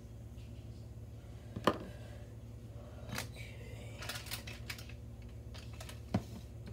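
Close handling noise: a few sharp clicks and taps, with a short run of crackling about four seconds in, over a steady low hum.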